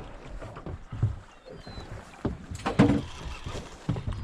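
Irregular knocks and thumps on a boat at sea, over water and wind noise; the loudest knock comes nearly three seconds in.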